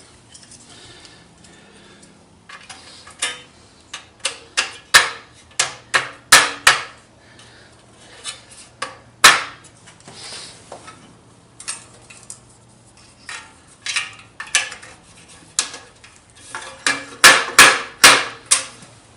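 Small metal parts and hand tools clinking and knocking as they are handled and fitted: irregular sharp knocks, bunched in two busy stretches, one about four seconds in and one near the end, over a faint steady low hum.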